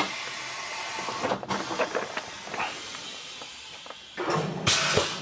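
Compressed air hissing at a tire changer: a steady hiss that starts suddenly, with a few light knocks, then a louder burst of hiss about four seconds in.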